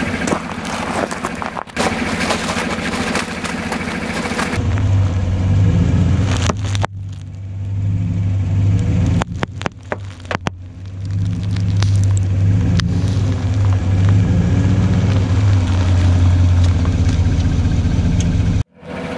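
Chevrolet Silverado pickup truck's engine running as its tyres roll over gravel and crush a box of plastic-wrapped Twinkies. A deep, steady engine drone comes in about four and a half seconds in, and the sound breaks off abruptly several times.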